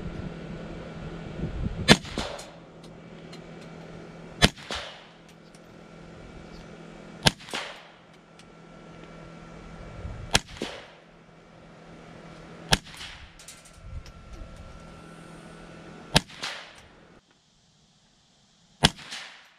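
Ruger 10/22 .22 rimfire semi-automatic rifle firing seven single shots, spaced roughly two and a half to three and a half seconds apart. Each sharp crack is followed about half a second later by a softer second crack.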